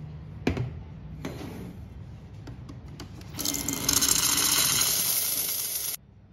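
Steam wand of a De'Longhi Dedica EC685 espresso machine purging, a loud steady hiss of steam jetting into a stainless milk pitcher; it starts about three seconds in and cuts off suddenly near the end. Before it come two sharp knocks and a few light clicks.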